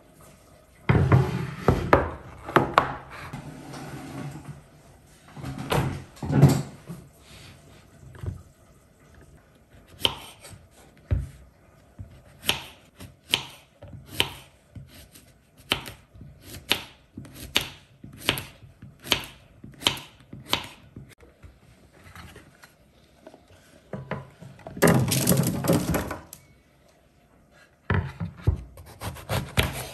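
A small kitchen knife slicing a zucchini into rounds on a bamboo cutting board, each cut ending in a sharp tap on the wood, about three cuts every two seconds through the middle stretch. Before that, knocks and clatter of the board and vegetables being set down; near the end, a two-second scrape as the slices are pushed off the board onto a baking tray.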